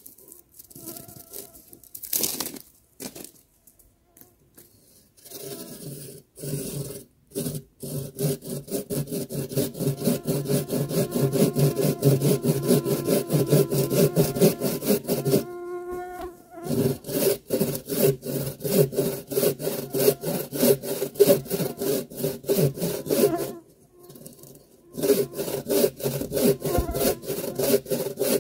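Silky Gomtaro folding pull saw with a 270 mm blade and coarse teeth cutting through a fallen pine log: quick, regular back-and-forth strokes that start a few seconds in, with a short pause about halfway and another near the end.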